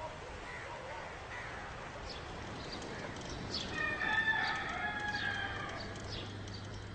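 A rooster crowing once: one drawn-out call about four seconds in, with short high chirps around it.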